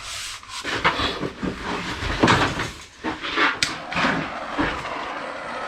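A run of irregular knocks, clunks and scrapes as objects are handled and set down.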